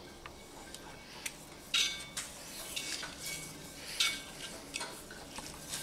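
Metal parts clinking and scraping against a steel torque converter housing and workbench while a converter clutch is assembled: a few sharp clinks with short ringing, the loudest about two seconds in and again about four seconds in.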